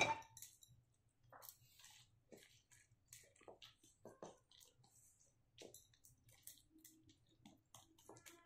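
Silicone spatula pressing and spreading a sticky mass of freshly cooked banana halwa in a tray: faint, irregular squelches and soft scrapes, with a sharp knock right at the start.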